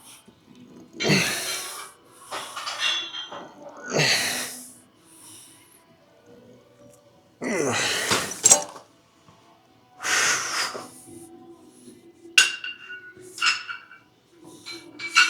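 Hard, forceful breaths or grunts every two to three seconds during a set of reps, then several sharp metallic clinks from about twelve seconds in, like weight plates or a bar touching.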